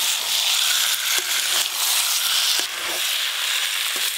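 Fried potato and pointed-gourd pieces sizzling steadily in oil and spice paste in a metal wok, the masala fried until its oil has separated, while a metal spatula stirs them with a few light scrapes and clicks.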